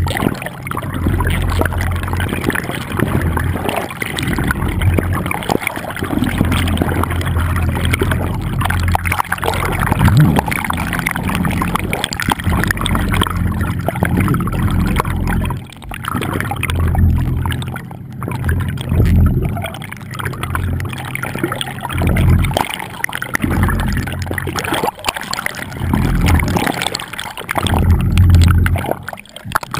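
Muffled water rushing and sloshing around a camera in an underwater housing, with a deep, uneven rumble that swells and fades every second or two.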